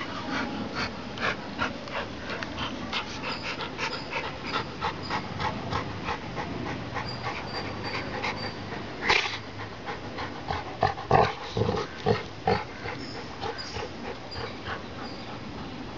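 Two yellow Labrador retrievers play-fighting, panting and snuffling hard in quick repeated breaths as they mouth each other, with a few louder sharp bursts about nine seconds in and again around eleven to twelve seconds.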